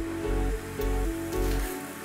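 Background music with a steady beat, about two bass thumps a second; the bass drops out near the end.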